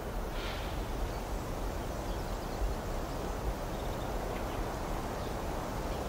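Steady outdoor ambience: a low, even rumble of wind-like noise with a few faint, short high-pitched calls, one about half a second in.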